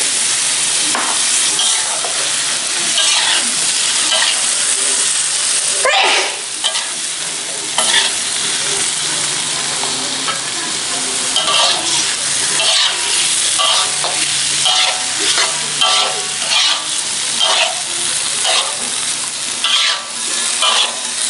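Eel pieces sizzling in hot green chili paste and oil in a metal wok, stir-fried with a metal spatula that scrapes and knocks against the pan at irregular intervals.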